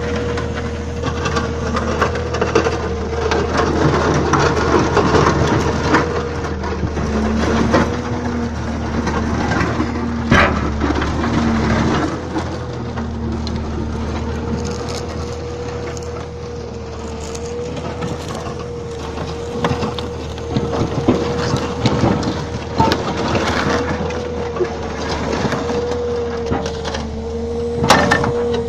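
Excavator diesel engine and hydraulics running with a steady whine, while a heavy steel machine frame is shifted over gravel with grinding, creaking and scattered knocks and cracks. Two sharp cracks stand out, about ten seconds in and just before the end.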